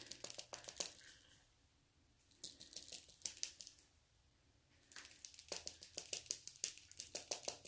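Plastic ProClean protein swab tube being closed and handled in the fingers: small rapid clicks and crinkles in three spells, near the start, about two and a half seconds in, and from about five seconds on.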